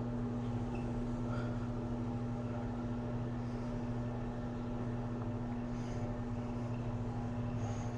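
Somfy motorized shade's motor running with a steady hum as the shade rolls up toward its upper limit.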